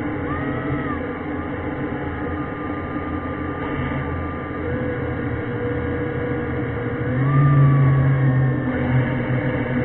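Underwater whine of an ROV's electric thruster motors, several tones sliding up and down in pitch as the thrusters speed up and slow down. A louder low hum comes in about seven seconds in.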